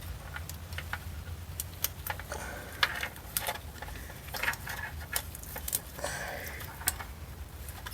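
Scattered light clicks, taps and rattles of a rear ABS sensor wire and its fittings being worked by hand up through rusty suspension parts, a couple of sharper knocks among them, over a steady low hum.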